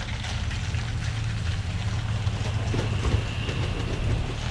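Steady low rumble of strong wind buffeting the microphone.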